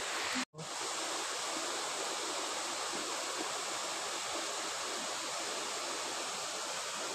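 Steady rushing of a waterfall heard from across a valley, an even noise with no single sounds standing out; it drops out briefly about half a second in.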